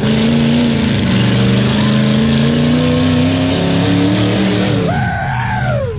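Vehicle engine running under load, its pitch climbing slowly as it revs. Near the end a higher note rises and then falls away.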